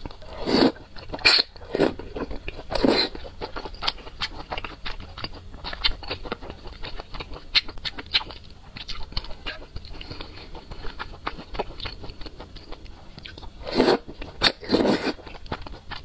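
Close-miked eating of wide, slippery noodles: several loud slurps in the first few seconds, then steady wet chewing with many small mouth clicks, and two more loud slurps near the end.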